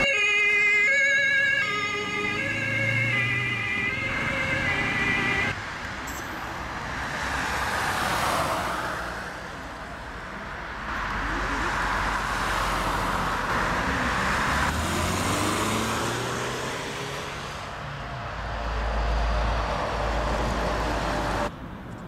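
Emergency vehicle siren sounding for about the first five seconds, its pitched tones wavering, cutting off abruptly. Then a rushing noise that slowly swells and fades several times, with deep rumbling at times, stopping suddenly near the end.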